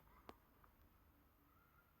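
Near silence: room tone, with one faint click about a quarter second in.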